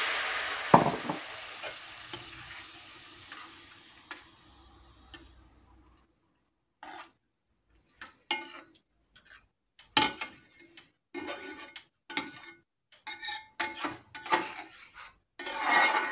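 Hot water sizzling in a karahi of frying rice and vegetables, the hiss fading away over the first several seconds, with a sharp knock of the spatula on the pan about a second in. Then short separate scraping strokes as the spatula stirs the watery rice in the pan.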